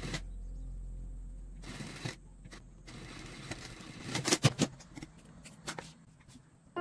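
SunStar industrial sewing machine with its motor humming low for about the first two seconds, then going quiet. After that comes fabric being handled and rustled, with scattered sharp clicks and knocks, the loudest cluster about four seconds in.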